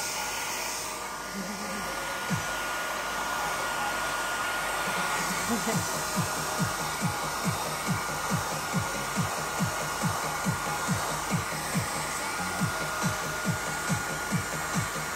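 Hair dryer running steadily as a freshly bathed dog's fur is dried. About six seconds in, a low, regular thump joins it, about two to three times a second.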